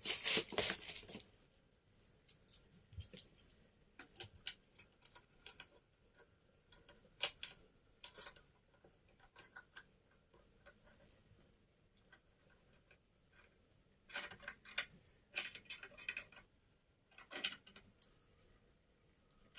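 Scattered small clicks, taps and light rattles of hard parts being handled and fitted together during assembly, with busier clusters of clicking about fourteen and seventeen seconds in.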